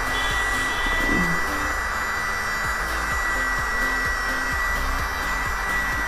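Mini USB keyboard vacuum cleaner running steadily, its small motor giving a steady high whine over a rush of air as the nozzle sucks up loose detergent powder.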